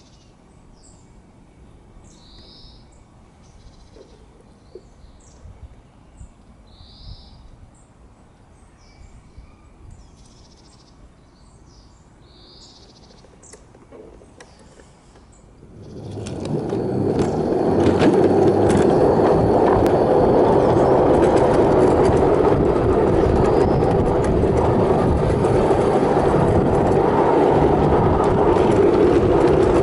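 Birds calling every second or two over quiet garden air; about halfway through, a ride-on 5-inch gauge railbus starts running along the track and the loud, steady rumble of its wheels on the steel rails takes over, with scattered clicks.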